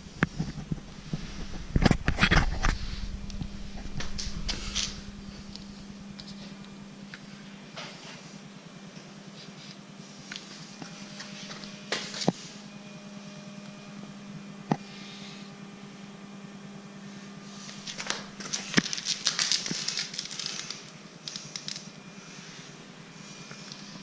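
Handling noise from a handheld camera moved around a bicycle: rubbing, scattered knocks and clicks, with louder rustling bursts about two seconds in and again late on. Underneath is a steady low hum.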